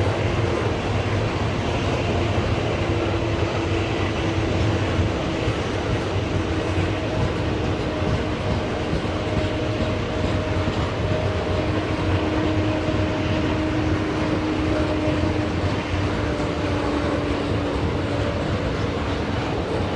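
Freight train of grain hopper cars rolling steadily past, steel wheels on rail. A faint drawn-out whine runs under the rumble.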